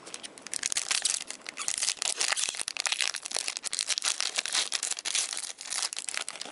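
A hockey card pack wrapper crinkling and crackling as it is handled and torn open.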